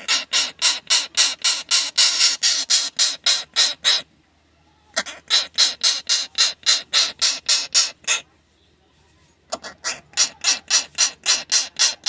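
Rapid rhythmic rasping scrapes on a hard surface, about four a second, in three runs broken by two short pauses.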